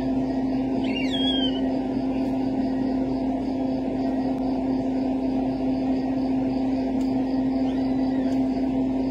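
Steady low hum, as of a fan or motor, with a few faint high chirps that slide up and down in pitch about a second in and again near the end.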